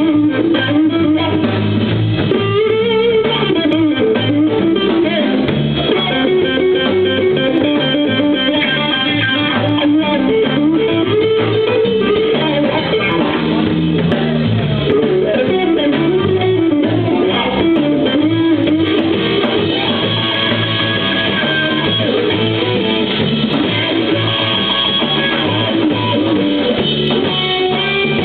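Live blues band playing, an electric guitar carrying a wavering lead line over bass.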